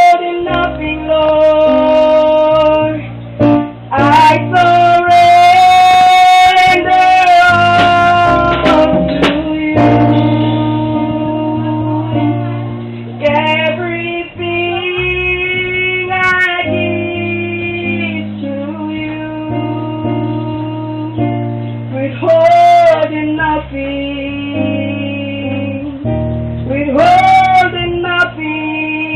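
Gospel worship music: a woman singing long held notes with vibrato over guitar accompaniment and sustained low bass notes.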